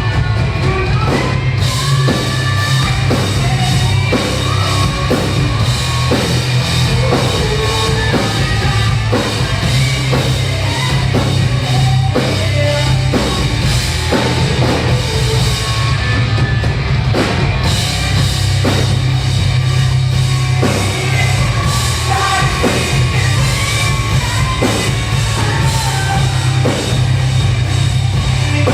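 Rock band playing live: a drum kit keeping a steady beat under bass and guitars, loud throughout.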